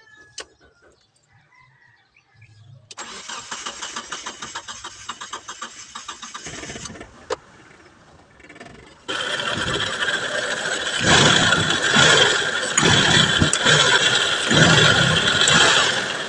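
Gasoline engine of a Mitsubishi Adventure being cranked to start, typical of its hard-starting fault. The starter turns it over in a rhythmic churn about three seconds in, stops, and a louder second attempt begins about nine seconds in with surges in level.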